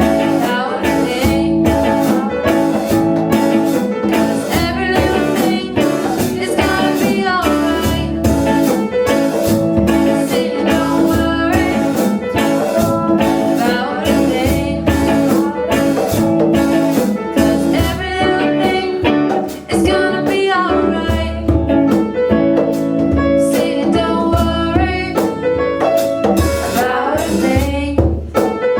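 A band playing a reggae song with singing over guitar and a steady drum beat.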